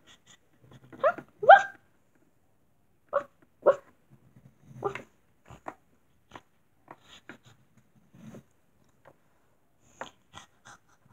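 A person's voice imitating a small dog barking, about five short yaps, the two loudest close together about a second in, followed by light clicks and taps of a plastic toy figure being moved on a hard surface.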